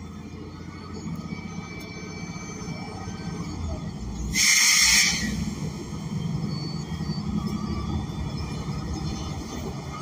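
A Cummins Westport L9N natural-gas engine and drivetrain heard from inside the bus cabin with the air conditioning off: a steady low rumble that grows louder over the first few seconds. About four seconds in, a loud hiss of air lasts under a second.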